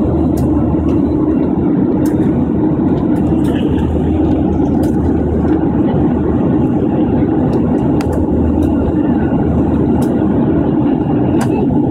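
Steady jet airliner cabin noise in flight: the low, even drone of the engines and airflow heard through the fuselage, with a few faint ticks.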